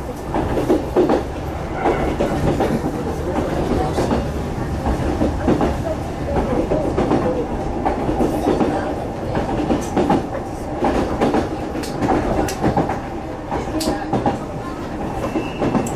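A Yoro Railway local electric train running, heard from inside the passenger car: a steady rumble with a constant hum, and sharp irregular clicks as the wheels cross rail joints.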